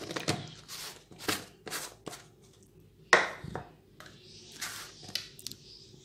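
Metal spoon scraping and tapping against a bowl and plate while spooning a dry powder: a series of short clinks and scrapes, the loudest a little after three seconds in.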